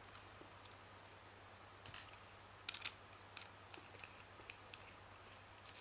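Scattered faint clicks and ticks of small phone parts being handled and worked loose during disassembly, with a few sharper clicks near the middle, over a steady faint low hum.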